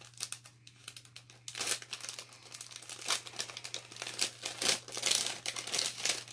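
Plastic silkscreen transfer sheet and its backing crinkling and rustling as hands handle and position it, in irregular crackles that grow denser about a second and a half in.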